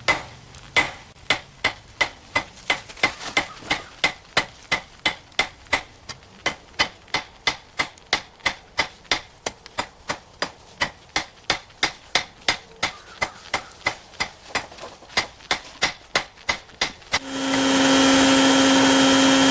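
Blacksmith's hammer striking hot rebar on an anvil at a steady pace, about two to three blows a second, each blow with a short metallic ring, as the bar is flattened into flat stock. About seventeen seconds in, an electric blower starts with a loud, steady whirring hum.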